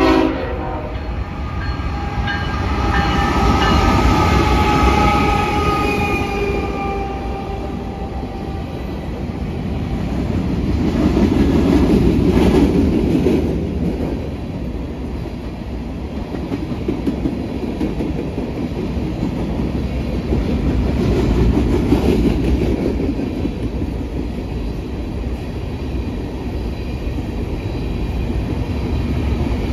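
Diesel freight train passing close by: the horn cuts off right at the start, the locomotives go by with their engine tones sliding down in pitch over the first several seconds, then a long string of loaded covered hopper cars rolls past with steady wheel rumble and clatter that swells and eases.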